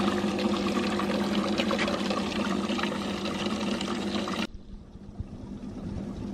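Water pouring and trickling down an aquarium waterfall over a steady low hum. About four and a half seconds in it cuts off abruptly to a quieter, duller water sound.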